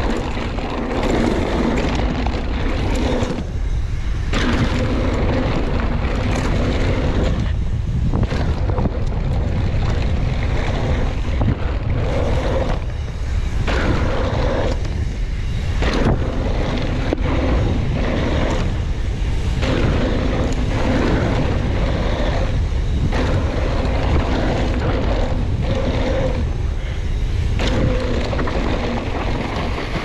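Wind rushing over the camera microphone and a mountain bike's tyres running fast over a dry dirt trail. A hum rides on top of the noise and drops out briefly every few seconds.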